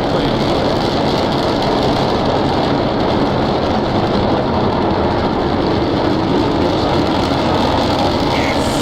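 SpaceX Starship SN9's Raptor rocket engines, heard from a distance as a loud, steady rumble during ascent.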